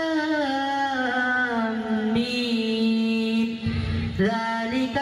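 A single man's voice reciting the Quran in the melodic, drawn-out style, holding long ornamented notes. One long phrase ends about three and a half seconds in, and after a brief breath the next phrase begins.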